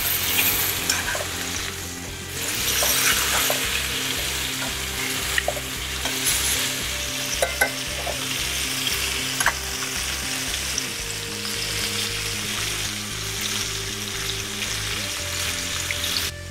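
Chicken thighs sizzling in hot oil in a cast-iron skillet as they are turned with metal tongs, with a few light clicks of the tongs against the pan.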